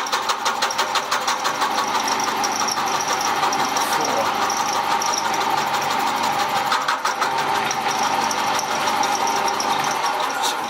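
Milling machine running and cutting a metal block, a steady machine whine with a fast, even ticking from the cutter teeth biting. It cuts off at the very end as the cut finishes.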